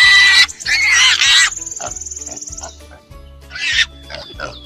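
Shrill animal squeals, two in the first second and a half, then a steady buzzing trill and later a short call and a thin whistled note, over background music with a steady beat.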